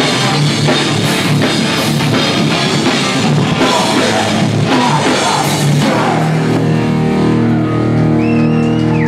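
Hardcore band playing live and loud: distorted electric guitar over a drum kit. About six seconds in the drum hits stop and a guitar chord is held, ringing out.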